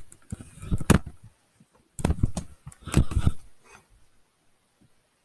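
Bumps, knocks and scuffing of a child crawling under a bed with a handheld camera, brushing against the bed frame and floor, in two bursts about two seconds apart.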